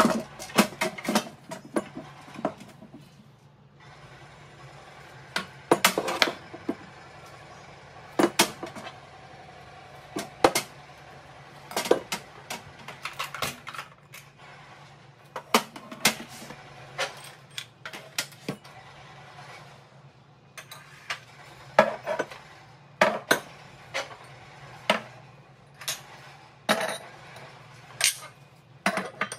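Irregular knocks and clinks of household items being set down in a kitchen cabinet: a white shelf riser fitted onto the shelf, then bottles, plastic bins and ceramic mugs placed on the shelves. The sharp hits come every second or so, with short gaps near the start and just before the middle.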